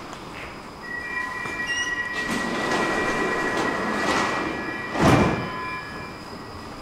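Stockholm metro train (C20 stock) at the platform, giving a steady high squeal of several held tones that stops near the end. About five seconds in there is a brief loud rush of noise.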